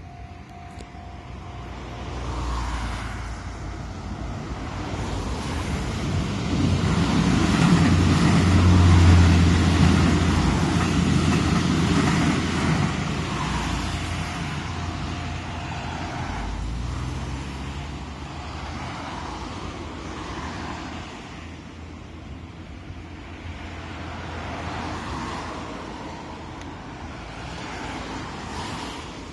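Passing traffic. The noise builds to a loud peak about nine seconds in, then eases to a steady background rumble.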